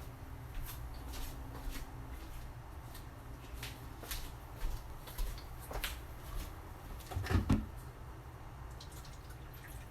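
Scattered light taps, clicks and rustles of kitchen utensils and dishes being handled, over a steady low hum, with the loudest knocks coming together about seven and a half seconds in.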